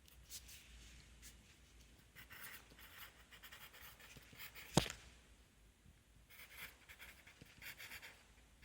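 Pencil scratching on paper in short, faint strokes that come in clusters, with one sharp click a little under five seconds in.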